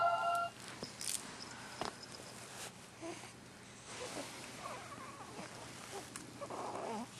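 An infant's soft cooing and small vocal sounds, brief and scattered, the clearest near the end. A short tune cuts off about half a second in.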